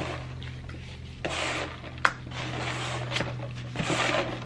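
Handling of styrofoam takeout containers and plastic utensils at a table: short patches of rubbing and scraping, with a couple of sharp clicks.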